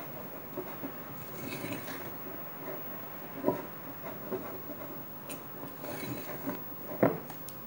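A utensil scraping and stirring dough in a glass mixing bowl, with soft rustling of flour and dough. Two sharp knocks against the bowl, about three and a half seconds in and near the end, stand out.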